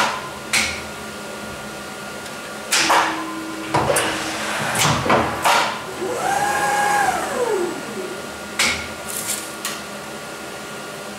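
Schneider Senator E-Line paper guillotine cutter working: a steady motor hum with a series of sharp mechanical clunks from the clamp and knife strokes. About six seconds in, a motor whine holds for a moment and then falls in pitch over about two seconds.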